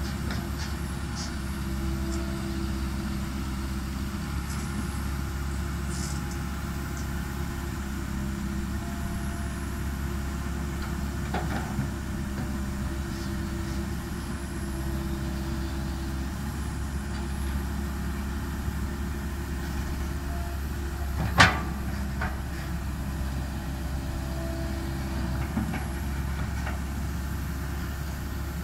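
Tracked excavator's diesel engine running steadily while it digs, with short tones coming and going over it. A single sharp knock about three quarters of the way through.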